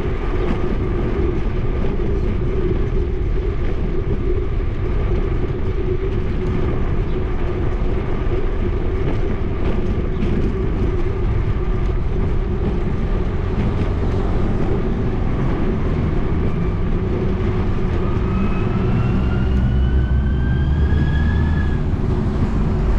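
Steady rumble and wind noise of a bicycle riding along a paved bike lane, picked up by a camera mounted on the bike, with a steady hum under it. Near the end a heavy truck's engine grows louder and rises in pitch as it accelerates alongside.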